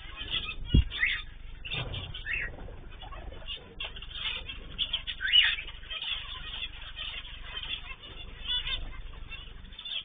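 Mixed cage birds (cockatiels, zebra finches and canaries) chirping and calling over one another, with wings fluttering and a low thump about a second in. The loudest sound is a rising call about five seconds in.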